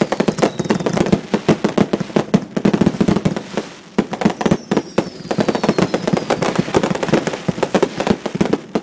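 Fireworks display going off: a rapid, dense run of bangs and crackling pops, several a second, easing briefly about four seconds in. A faint falling whistle comes twice.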